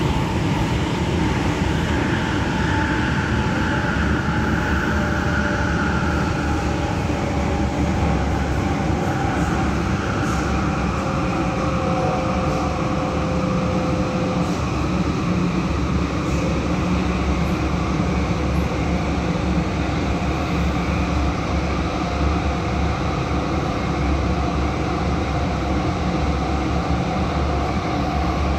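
MTR Rotem EMU (K-Train) running at speed through a tunnel, heard from inside the passenger car: a steady rumble of wheels on rail and running noise, with a faint high whine that comes and goes in the first half.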